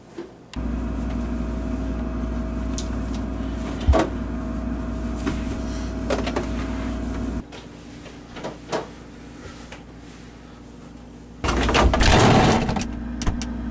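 A steady mechanical hum with a deep low drone starts abruptly and cuts off abruptly after about seven seconds, with a sharp click partway through. Near the end comes a loud, harsh noisy burst lasting about a second and a half.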